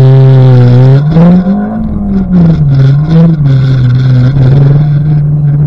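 Honda K20 four-cylinder engine in a VW GTI running hard under load. Its pitch holds, climbs about a second and a half in, drops back, then wavers and settles, as the car accelerates and slows.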